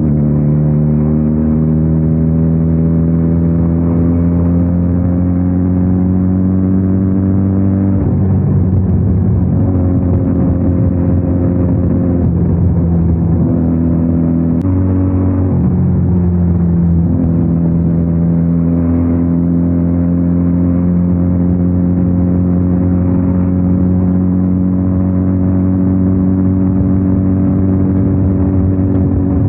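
Benelli 302R's parallel-twin engine running steadily under way, its note climbing slowly, with sudden steps in pitch about eight and fifteen seconds in.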